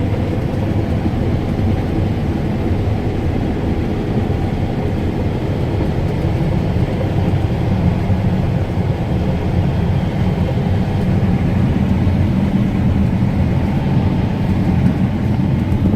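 Heavy harvest machinery running steadily: a continuous low engine and machine drone with no changes in pitch or level.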